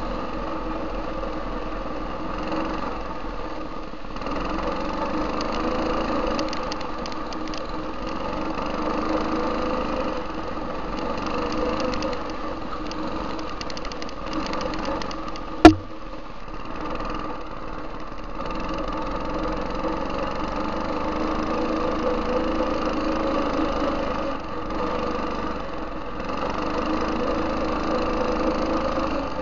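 Tecumseh HM80 8 hp single-cylinder engine on a go-kart running steadily under way, its pitch rising and falling a little with the throttle. There is one sharp, loud knock about halfway through.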